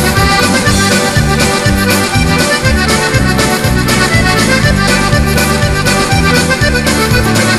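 Button accordion playing a traditional tune, a melody over a steady, rhythmic bass accompaniment.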